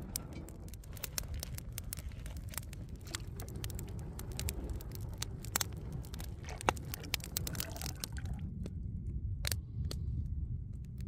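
Food-preparation handling sounds: irregular sharp clicks and scrapes with some wet squishing, over a steady low rumble.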